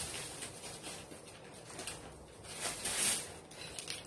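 A small plastic food packet handled in the hands, giving a few short, light crinkles and rustles over a quiet room.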